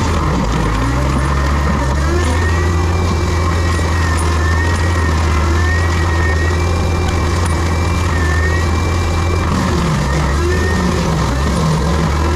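Heavy land-clearing machine's diesel engine running steadily under work, a deep drone with a high whine that rises and falls every second or two.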